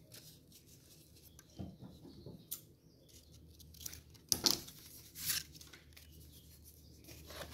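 Kraft paper strips rustling and tapping as they are picked up and laid down, in short, scattered handling noises with the loudest a little past halfway.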